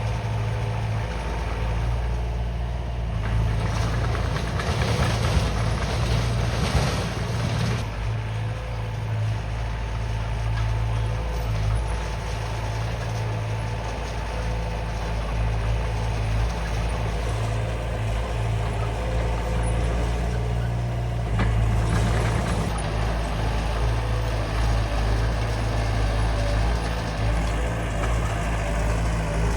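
Small Komatsu D20 bulldozer's diesel engine running steadily under load while it works.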